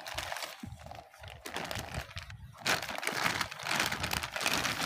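Clear plastic bag around a rifle scope crinkling as it is handled and pulled out of its cardboard box, irregular crackles that grow louder about two and a half seconds in.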